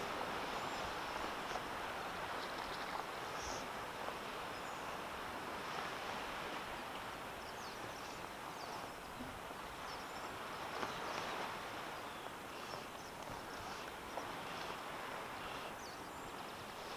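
Steady outdoor wash of light wind and rippling sea water around a wading angler, with faint short high sounds now and then.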